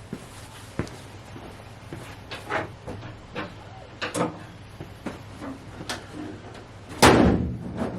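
Scattered light clicks and knocks, then a car door shut hard about seven seconds in.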